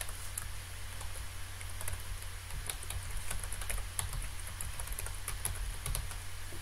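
Typing on a computer keyboard: a run of irregular key clicks, several a second, over a steady low hum.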